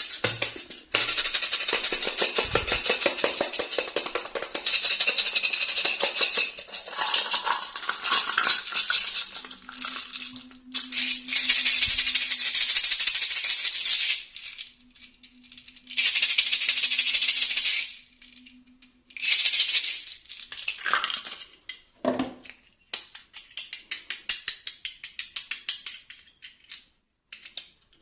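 Plastic doll packaging crinkling and rustling as it is handled and opened, in long dense stretches with short pauses, then a run of light separate clicks near the end.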